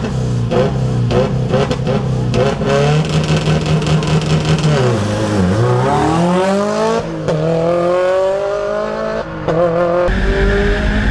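Subaru Impreza WRX STI Spec C's turbocharged flat-four rally engine, blipped over and over at the start line, about twice a second. It then launches: the revs dip and climb, then rise in steps as it changes gear. Near the end the sound switches to a steadier engine drone.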